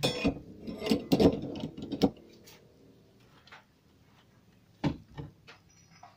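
Knocks and rattles from handling a CRT TV's main circuit board as it is lifted and tilted out of the plastic cabinet: a cluster of knocks over the first two seconds and one more knock about five seconds in.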